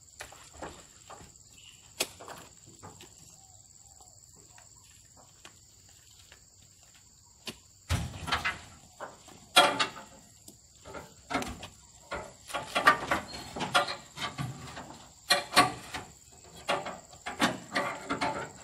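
Oil palm fruit bunches being hoisted with a long pole onto a heaped truck load: irregular knocks and thuds, sparse at first and thick from about eight seconds in. A steady high insect drone runs underneath.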